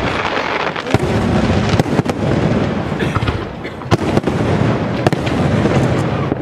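Aerial firework shells bursting in rapid succession: sharp bangs roughly every second over a continuous rumble of overlapping reports.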